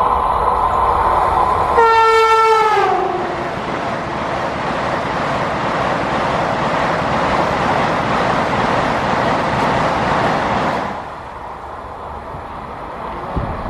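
Vande Bharat Express (Train 18) electric multiple-unit train sounding its horn on approach. About two seconds in the horn swells and its pitch drops as the train passes at high speed. A loud rush of wheels and air follows as the coaches sweep by, and about eleven seconds in it falls away to a quieter steady noise.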